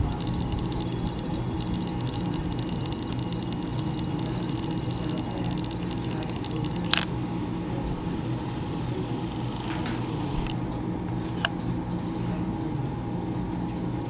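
Vintage AMC box fan running steadily, its motor humming under the rush of air. A few sharp clicks cut through, the loudest about halfway through and two more later.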